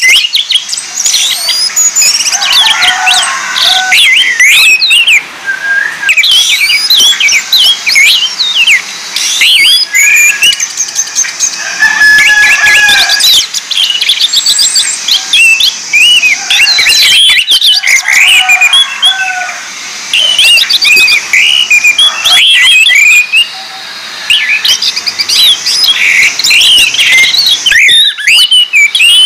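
Orange-headed thrush song: a loud, nearly continuous jumble of rapid, varied chirps and whistles, broken only by brief pauses.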